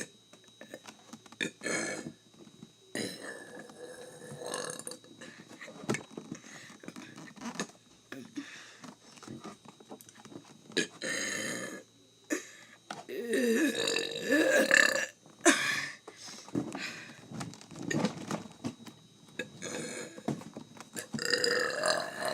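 A person burping again and again: a string of short belches, with longer drawn-out burps about halfway through and near the end.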